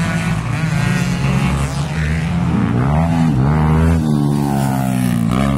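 Dirt bike engine revving hard as it passes. Its pitch drops and climbs again several times as the rider works the throttle and gears.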